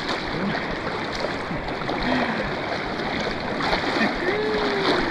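Steady rush of the Kenai River's current flowing around the angler.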